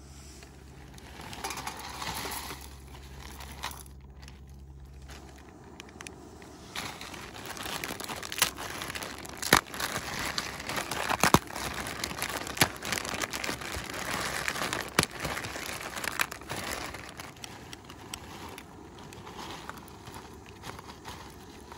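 Plastic zip-top bag crinkling as dry ramen noodles inside it are crushed by hand, with several sharp cracks from the noodles breaking in the middle stretch.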